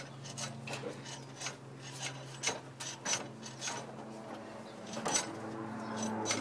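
Irregular metallic clicks, rattles and knocks from hands fitting a V-belt onto the alternator pulley and shifting the alternator on its mounting bracket, with a steady low hum underneath.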